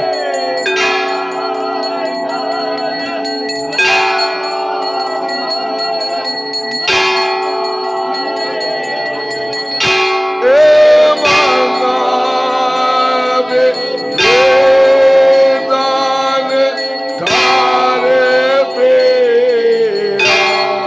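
Temple bells ringing without pause through the aarti, with a sharp strike about every three seconds, over voices singing the aarti in held, wavering notes that grow louder in the second half.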